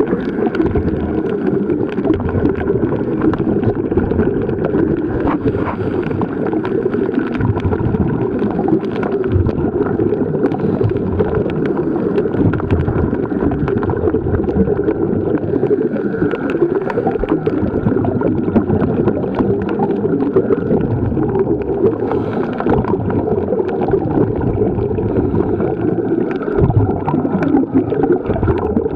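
Underwater ambience picked up by a submerged camera: a steady, muffled water rush with many sharp crackling clicks.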